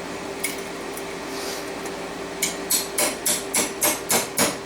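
Rapid hammer taps, about four a second, beginning about halfway through and getting louder: stainless steel pieces being driven tightly into a canister for a canister forge weld.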